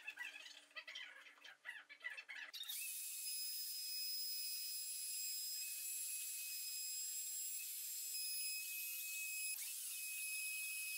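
Handheld router switching on about three seconds in and running steadily at high speed with a high-pitched whine as it is guided along the walnut mirror frame against a clamped template.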